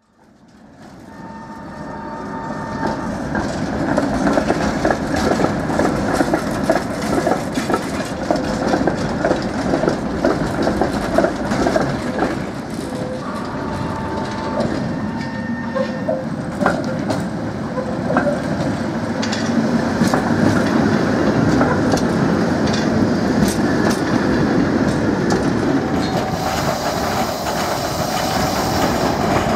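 Trams rolling through a tram junction, steel wheels clicking and clattering over the points and rail crossings, with brief squealing tones from the wheels. The sound fades in over the first few seconds. Near the end a Škoda 14T low-floor tram curves through the junction.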